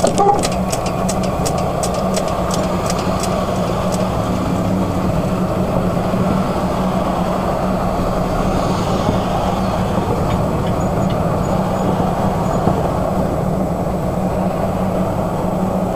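Freight train going away down the track: sharp clicks of wheels over the rails for the first few seconds, then a steady low rumble with a constant hum.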